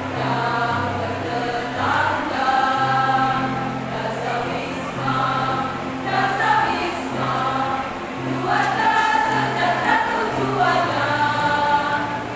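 Women's choir singing a song, the voices holding notes and moving together, over a low bass line of held notes that change pitch every second or so.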